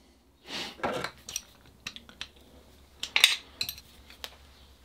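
Adjustable steel spanner and grips clinking and scraping against the metal body of a Graco Cleanshot shut-off valve as a nut is worked loose: a scatter of light metallic clicks and a couple of short scrapes, the sharpest clicks about three seconds in.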